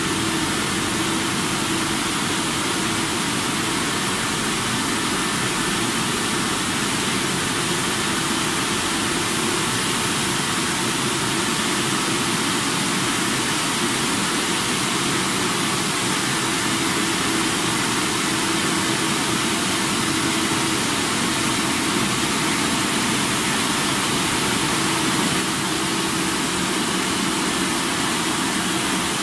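Risense CF-370 rollover car wash machine running, its spinning brushes scrubbing a wet car: a steady rushing noise with a faint steady motor hum underneath.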